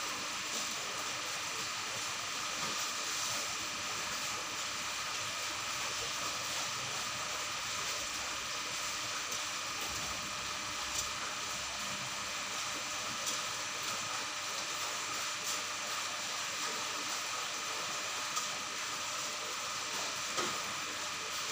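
Steady hiss of aquarium water and air bubbling from the tank's filtration and aeration, with a few faint ticks scattered through.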